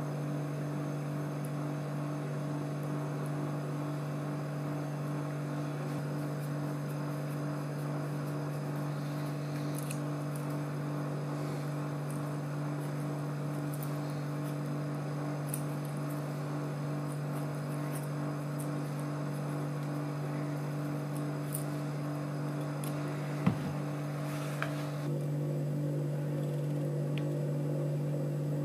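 Proxxon PD 250/E benchtop lathe running steadily with a die cutting a shallow pass along a small lead screw: an even motor hum with faint light ticks. There is a sharp click about 23 seconds in, and the hum shifts slightly soon after.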